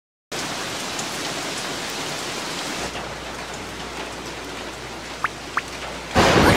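Cartoon rain sound effect: steady, even rain falling, starting abruptly a moment in. Two brief high chirps sound about five seconds in, and a sudden loud, deep burst breaks in near the end.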